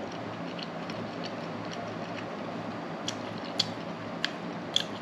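Eating noises: a few light, irregularly spaced clicks and ticks, sharper in the second half, over a steady low hum.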